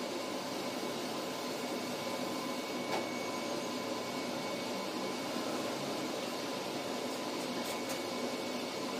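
Steady background hiss with a faint even hum, like room noise from a running appliance, and one soft click about three seconds in.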